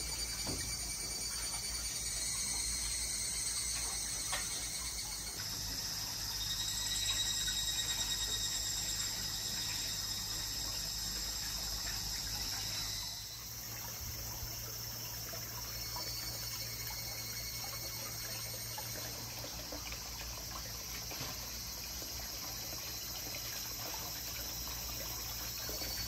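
Hot-spring water pouring from a wooden spout into a round stone bath tub, a steady splashing, with insects shrilling steadily over it. The mix changes abruptly about five and thirteen seconds in.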